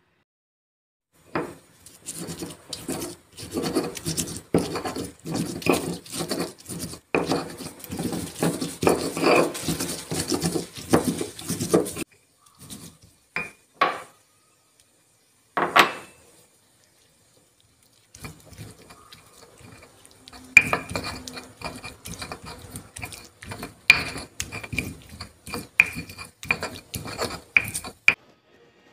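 Stone pestle grinding and knocking in a stone mortar as sambal is made, in dense runs of rubbing and knocks. After a pause partway through, the knocking resumes with sharper ringing clinks.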